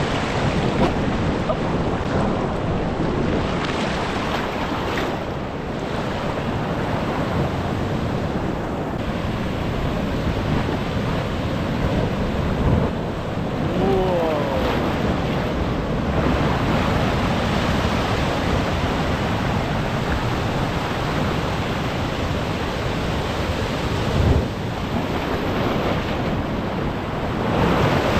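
Ocean surf washing steadily over rocks, with wind buffeting the microphone. A short falling-pitched cry sounds about halfway through, and a brief knock near the end.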